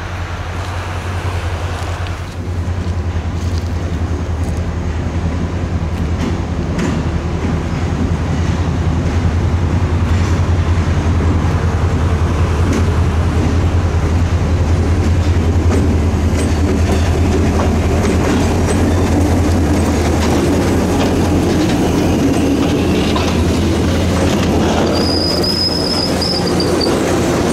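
Diesel freight locomotives, an EMD GP40-3 and a GE B23-7, approach and pass with their engines running as a steady low hum that grows louder over the first several seconds. The freight cars then roll by with wheel clatter, and a brief high wheel squeal comes near the end.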